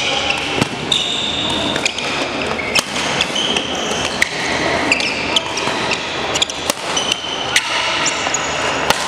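Badminton doubles rally: racquets striking the shuttlecock with sharp pops, about one every half second to second, mixed with short squeaks of shoes on the sports-hall floor.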